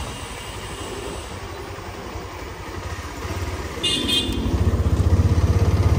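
Benelli 302S parallel-twin motorcycle engine running as the bike rides along at low speed, getting louder in the second half as it picks up. About two-thirds of the way through comes a short, high horn toot.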